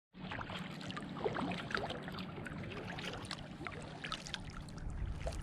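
Water lapping and trickling against a kayak, with many small drips and splashes.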